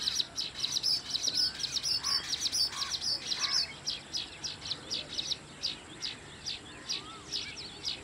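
Small birds chirping in a quick, continuous run of short high notes, with a few lower whistled notes mixed in; the chirping thins out after about four seconds.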